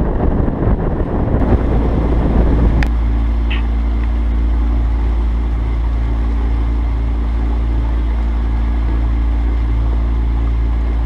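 Sailing catamaran's engine running steadily under way. Wind buffets the microphone for the first few seconds. About three seconds in, the sound changes abruptly to a smoother, even engine hum.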